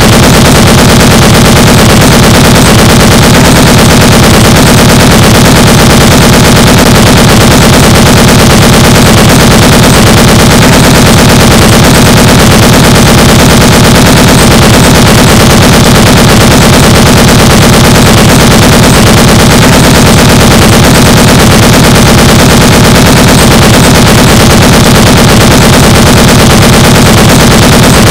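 Continuous rapid machine-gun fire sound effect, very loud and distorted, unbroken throughout, laid over play with a toy blaster.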